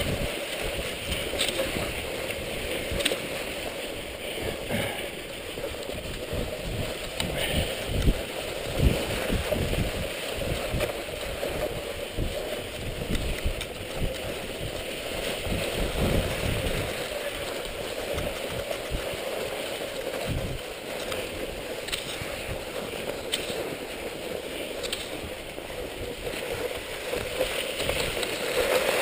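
Cross-country skis gliding and scraping over snow on a downhill run, a steady rushing hiss with low rumbling from wind on the microphone and a couple of louder bumps about eight seconds in.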